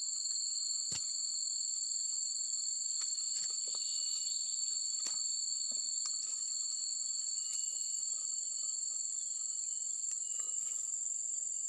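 Steady chorus of insects keeping up a continuous high-pitched trill on two unbroken tones, one higher than the other, with a few faint clicks scattered through it.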